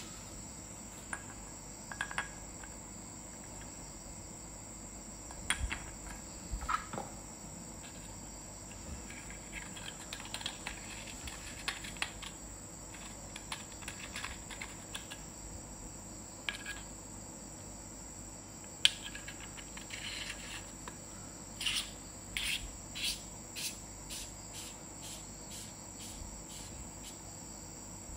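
Scattered clicks, taps and rustles of hands handling an aluminium flashlight, its tail cap and its plastic packaging, over a steady high-pitched insect chirring, like crickets.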